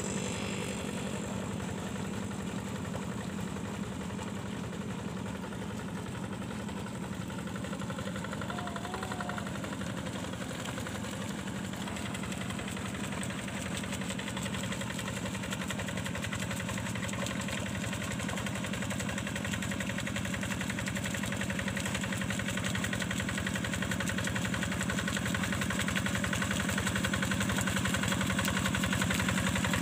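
Single-cylinder diesel engine of a two-wheel hand tractor running steadily as it drags a levelling plank through a flooded rice paddy. It grows gradually louder over the second half as the tractor comes closer.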